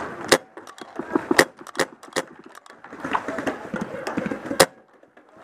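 Paintball gunfire: a handful of sharp cracks, loudest about a third of a second in, around a second and a half in, and near the end, with players shouting in the distance.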